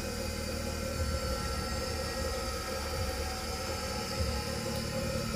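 Hitachi Koki GBK2 bench grinder coasting after being switched off: the motor and its two grinding wheels still spinning freely with a steady hum. Its precisely made shaft lets it run on for minutes without power.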